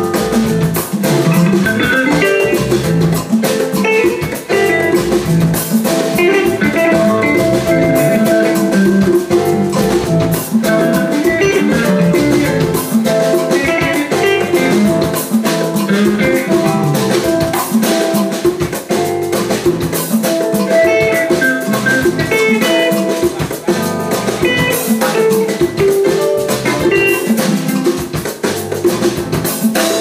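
Live Afrobeat band playing: electric guitars, keyboard, drum kit and congas over a steady, busy beat.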